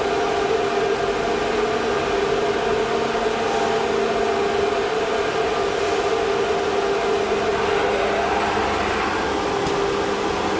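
CNC milling machine running: a steady whine over a dense hiss of machining noise.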